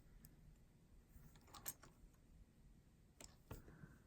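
Near silence with a few faint clicks of costume and silver jewelry being handled, metal pieces lightly tapping together.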